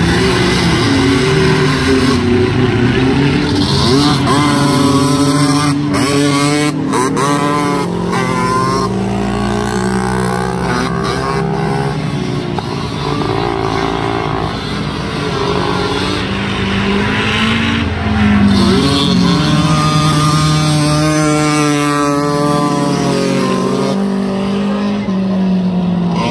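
Engines of several racing three-wheeler ATCs revving hard, their pitch repeatedly climbing and dropping as they race around a dirt track, with more than one engine heard at once.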